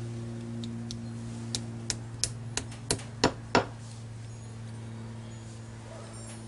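A hammer tapping wall anchors into drilled holes: a quick run of about seven sharp taps, around three a second, with the last two the loudest. A steady low hum runs underneath.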